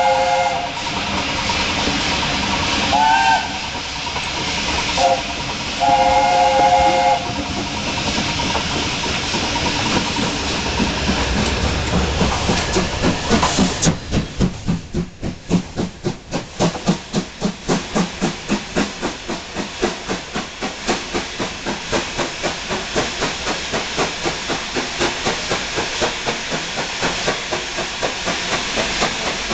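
Steam locomotive whistles, each a chord of several notes: a blast at the start, short toots about three and five seconds in, and a longer blast about six seconds in, over a steady hiss of steam. From about twelve seconds in, a steam locomotive's exhaust beats out evenly, about two chuffs a second, as the train gets under way.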